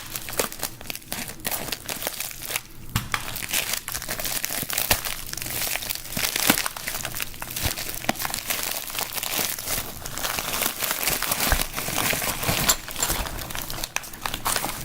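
Packaging crinkling and rustling continuously as a package is unwrapped, with occasional tearing sounds.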